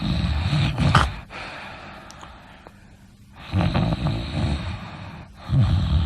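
A person snoring. One loud, rough snore ends about a second in, another runs from about three and a half seconds to just past five, and a shorter one follows straight after near the end.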